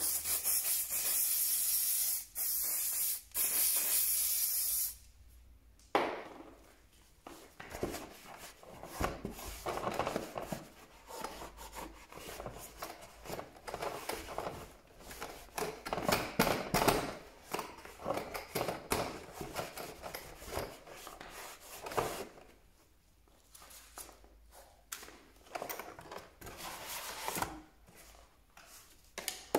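Aerosol spray can hissing in three bursts over about five seconds. Then a long run of irregular rubbing and wiping strokes over the drill's plastic housing, pausing for a few seconds near the end.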